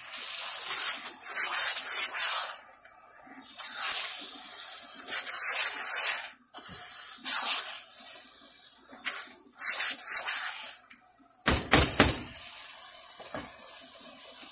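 Spiced masala with green peas sizzling as it fries in a kadai, stirred with a spatula; the sizzle surges and fades unevenly, with a few knocks of the spatula against the pan near the end.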